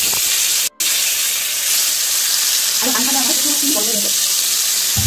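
Hilsa fish head, rubbed with salt and turmeric, sizzling as it fries in hot oil: a loud, steady hiss, broken once for a moment a little under a second in.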